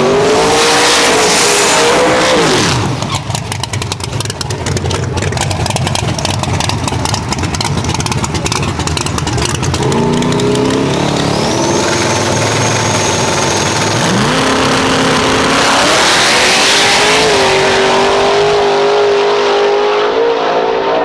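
Loud high-performance race car engines revving and accelerating. A stretch of rapid crackling comes a few seconds in. Later the engine pitch climbs in steps and then holds steady.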